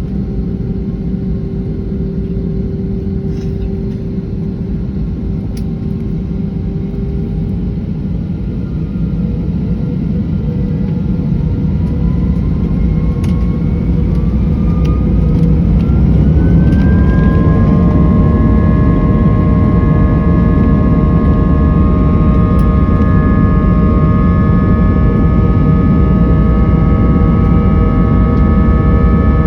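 Airbus A320's IAE V2500 turbofan engines spooling up for takeoff. A steady whine over a heavy rumble begins to climb in pitch about nine seconds in and keeps rising for several seconds as it grows louder. It then settles into a loud, steady whine and rumble at takeoff power.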